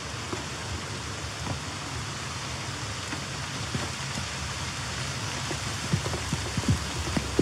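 Steady rain pattering on leaves and grass. In the last couple of seconds there are a few soft thumps: a walker's footsteps as he crosses a wooden stile into the grass.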